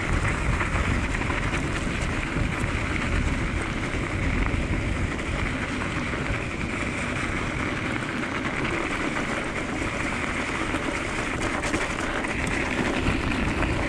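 Diggler DSK kick scooter's tyres rolling over a thin crust of crunchy snow on a dirt trail, a steady crunching rush.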